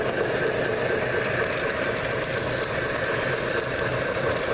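O-gauge model trains running on the layout track: a steady rumble of the locomotive motors and wheels rolling on the rails.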